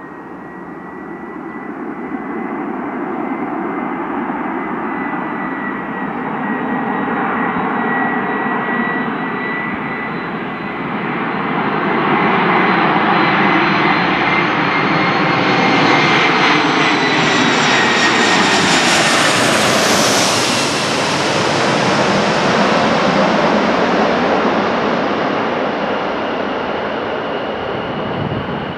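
The four CFM56-5C turbofan engines of an Airbus A340-300 on final approach. The steady high fan whine and jet roar grow louder as the airliner comes in low overhead, about twenty seconds in. The whine then drops in pitch and the roar fades as the plane moves away toward the runway.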